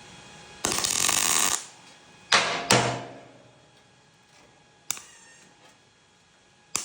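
An arc welder laying a tack, about a second of crackling hiss, then two sharp hammer blows ringing on the steel as the plate is knocked down to close the gap. Another tack starts near the end.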